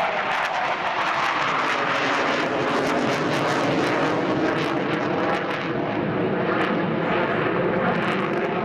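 Eurofighter Typhoon FGR4 fast jet's twin EJ200 turbofan engines, loud and steady jet noise with a ragged crackle throughout, as the fighter flies a tight banking display turn.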